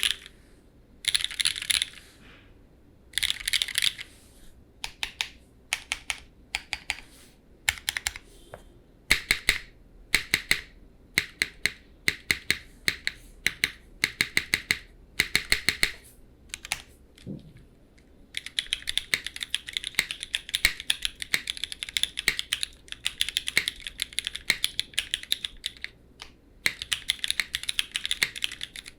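Custom F1-8x V2 mechanical keyboard with Cherry MX2A Black linear switches, DCX keycaps and no case foam, being typed on. There are two short flurries of keystrokes, then single key presses about two a second, then continuous fast typing from about two-thirds of the way in.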